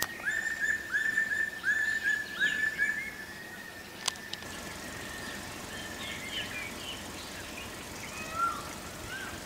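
Forest birds calling. A long steady whistled note carries a quick run of repeated short rising notes for the first few seconds, then scattered chirps and a couple of short downward-sliding calls near the end.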